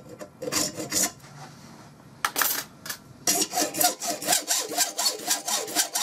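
Hand hacksaw cutting through a mild steel bar. A few separate strokes come first, then from about three seconds in a steady run of quick back-and-forth strokes, three or four a second.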